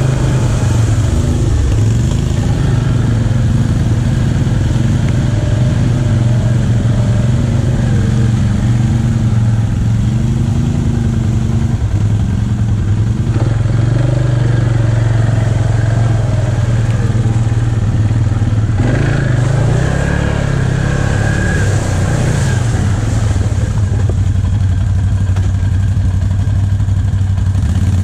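All-terrain vehicle engine running close up, heard from its own handlebars. Its pitch rises and falls as the throttle is worked over rough, wet ground.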